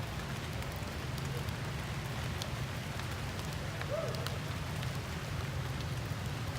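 Steady patter of rain or dripping rainwater, with scattered sharp drop ticks. A brief faint squeak about four seconds in.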